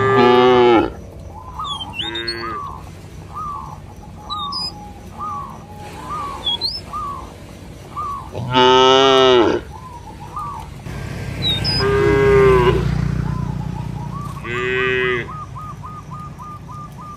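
Cattle mooing: about five separate calls, the longest and loudest about nine seconds in, from cows and calves in a walking herd.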